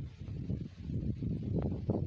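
Wind buffeting the microphone outdoors: an uneven low rumble that swells and dips, with a couple of light clicks.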